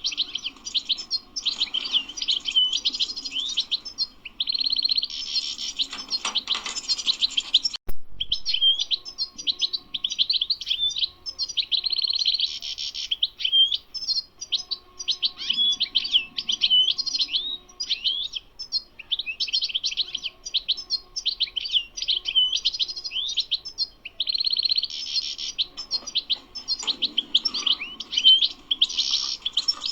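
European goldfinch singing: a fast, continuous twittering song of quick chirps and liquid notes, with several buzzy trilled passages, broken only by a short pause with a click about eight seconds in.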